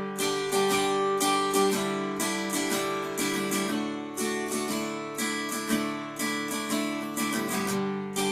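Guitar strumming chords in a steady rhythm, an instrumental passage of a song with no singing.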